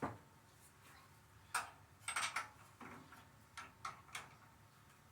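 Irregular metallic clicks and clinks of hand tools working the spark plug out of a chipper shredder's small engine, about seven sharp ticks with the loudest about one and a half and two seconds in.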